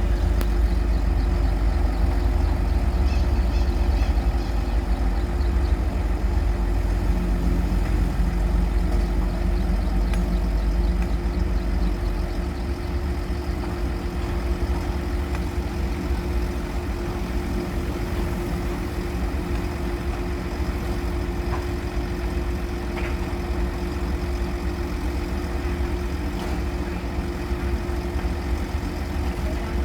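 A heavy vehicle engine running steadily at idle: a deep rumble with a steady hum over it, the rumble easing a little about twelve seconds in.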